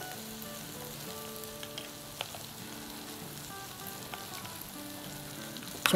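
Chicken patties frying in a pan, a steady sizzling hiss, with a couple of light clicks of a fork against a ceramic bowl as a mayo-ketchup sauce is stirred. Soft background music with held notes runs underneath.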